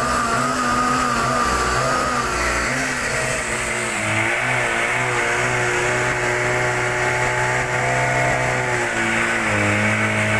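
Portable engine-driven fire pump running steadily, its engine note shifting in pitch about four seconds in and again near the end.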